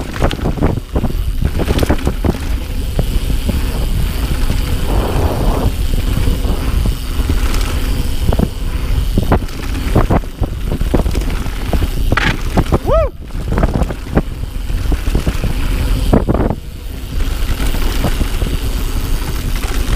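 Mountain bike riding fast along a dirt forest trail: a steady low rumble of tyres and wind, with frequent rattles and knocks from the bike over bumps, and a short squeak that rises and falls about thirteen seconds in.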